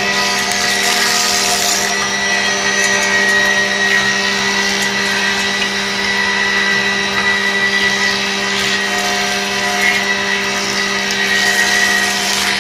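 Paint-brush wooden handle sanding machine running steadily: a constant motor hum with a high whine, under a continuous grinding hiss from the wooden handles being sanded between its rollers.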